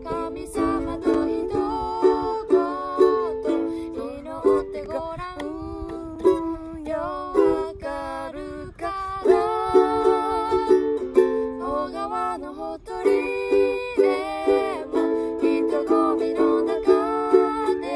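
Ukulele strummed in a steady rhythm, accompanying a young woman singing the melody of a children's gospel song.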